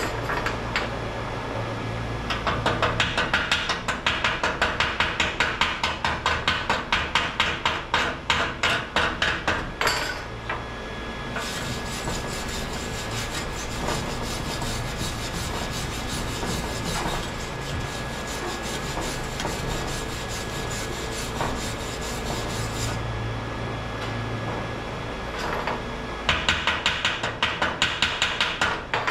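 Hand wire brush and hand tool scraping a steel exhaust pipe at the weld in quick, even strokes, about three a second. The strokes stop for a steady hiss in the middle, then start again near the end.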